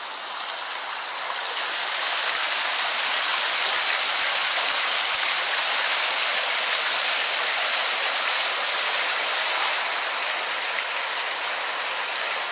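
Steady rushing of running water, getting a little louder about a second and a half in.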